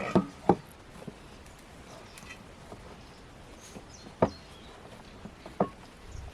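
A few sharp knocks: two in quick succession at the start, then two more a second or so apart about four and five and a half seconds in.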